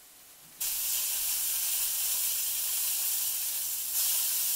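Smash-burger patties and sliced onions sizzling on a hot Vevor electric flat-top griddle. The sizzle starts suddenly about half a second in and gets louder about four seconds in, as a patty is pressed flat with a metal spatula.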